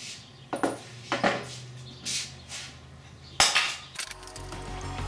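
Metal tools or parts clinking and rattling as they are handled, with one sharp metallic clank about three and a half seconds in. Background music comes in near the end.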